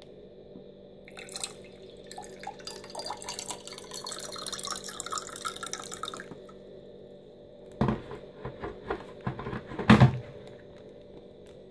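Water pouring into a drinking glass for about five seconds, measured out to about half a glass. Then a few sharp knocks, the loudest about ten seconds in.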